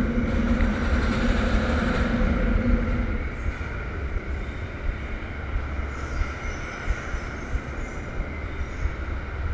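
Gerstlauer Euro-Fighter roller coaster train rolling through a dark tunnel: a steady low rumble of wheels on track, with a low droning tone that stops about three seconds in, after which the rumble is a little quieter, with faint scattered ticks.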